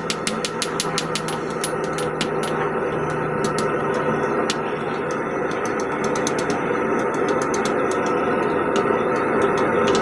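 Hot steel being forged: a quick run of hammer blows, about five a second, that thins out after a second or so into scattered strikes, over a steady rushing noise with a low hum.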